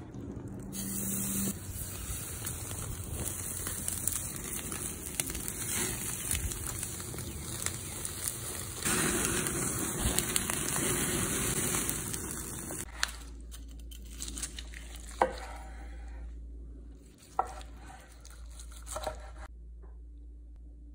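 Meat sizzling over a charcoal fire, a dense steady hiss with flare-up crackle. About two-thirds of the way through it gives way to a quieter low hum with a few sharp knocks.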